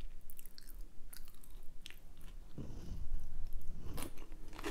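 A person chewing food close to the microphone: wet mouth clicks and small crunches, growing louder and fuller about two and a half seconds in.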